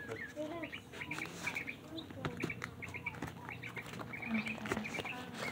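Birds chirping in short, repeated notes, with scattered clicks and rustles of books being handled.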